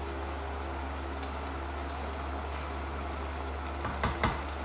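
Thick liver curry simmering and bubbling in a pot, over a steady low hum. Two sharp clicks about four seconds in.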